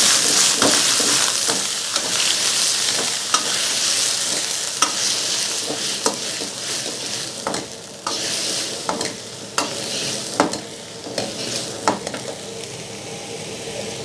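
Mixed vegetables sizzling and steaming in a hot stainless-steel wok just after a splash of water, with a metal ladle scraping and clicking against the wok as they are stirred. The hiss is loudest at first and dies down about halfway through, leaving the ladle's sharp clicks.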